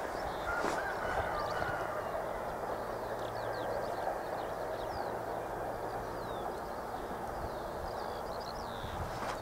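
Small birds chirping repeatedly with short quick calls, over a steady low rushing noise.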